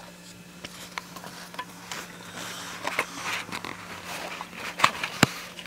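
Rustling and light clicking of small items and packaging being handled, with two sharp clicks a little before the end, over a faint steady hum.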